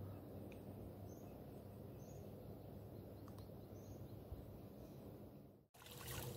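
Faint outdoor background noise: a low, steady rumble with a few short, high bird chirps scattered through.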